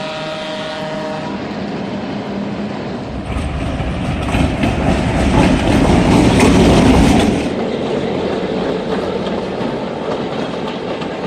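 Air horn of an EMD FP7 diesel locomotive sounding a held chord that cuts off about a second in, then the locomotive and its passenger train passing close, loudest in the middle, with wheels clacking over rail joints, settling to a steady rumble of the train going by.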